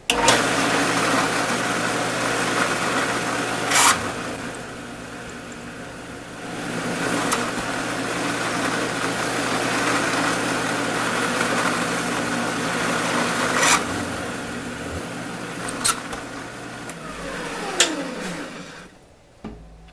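Drill press running with a reamer cutting into a pre-drilled hole in an aluminum plate, enlarging it to a snug fit for pins, with a few short sharp sounds from the cut. Near the end the machine is switched off and its motor winds down with falling pitch.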